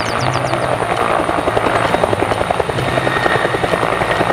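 Huey-type two-bladed helicopter hovering low, its main rotor beating out a rapid, even blade slap over a steady high whine.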